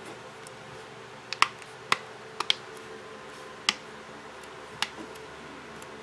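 About six sharp, scattered clicks and taps of small plastic and metal parts as an opened smartphone is handled on a work surface, with a steady low hum behind.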